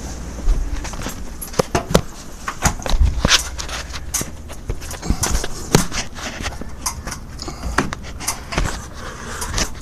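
Irregular knocks, taps and clatter of things being handled or set down: a couple of dozen sharp hits, spread unevenly.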